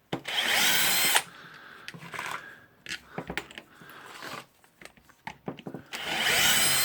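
Power screwdriver running in two bursts of about a second each, one near the start and one near the end, backing out the screws that hold the housing of a rotary hammer drill. Small clicks of handling come between the two bursts.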